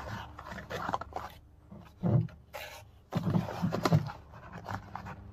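A hand rummaging inside a small cardboard box, with cardboard and paper rustling and scraping. There are louder, lower scrapes about two seconds in and again between three and four seconds.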